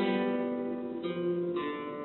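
Solo classical guitar playing three chords, struck at the start, about a second in and about a second and a half in, each left to ring and fade.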